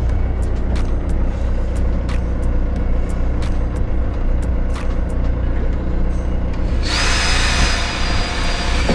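Cordless drill running for about two seconds near the end, a steady high whine in a rush of noise, on a battery that is running low. Before it come scattered light clicks and knocks of hand work, over a steady low hum.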